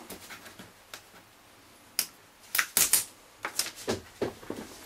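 A run of sharp, irregular clicks and light knocks, about a dozen, bunched from about two seconds in until near the end: hard objects being handled on a work surface.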